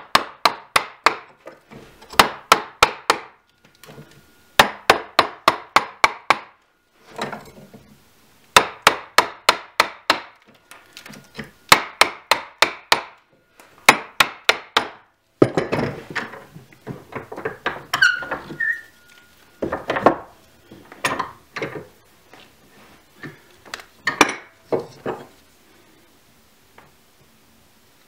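Sharp blows driving a large half-round gouge into a block of green birch, in quick runs of about four to five strikes a second with short pauses between. About halfway through comes a stretch of duller cutting and levering as chips are pried out of the hollow.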